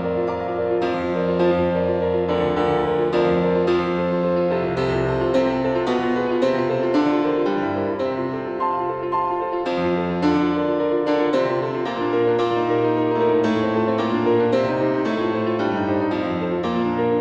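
Steinway grand piano played solo: a continuous passage of notes and chords, each one ringing on as the next is struck.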